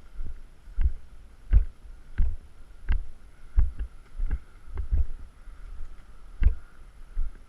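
Footsteps of a player walking at an even pace, a dull thud about every 0.7 seconds, with the body-worn action camera jolting at each step.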